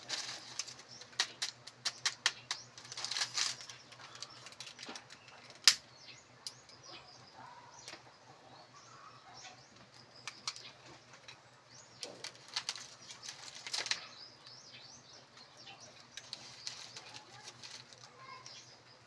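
Dry kindling sticks being handled and snapped while a small wood fire is lit on an open hearth: irregular sharp clicks and cracks, with a few brief scraping rushes, about three in all. Small birds chirp faintly in the background.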